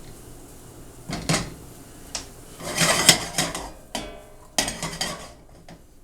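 Kitchen utensils clattering and scraping against a pan and dishes, in several short bursts, with a brief metallic ring about two-thirds of the way through.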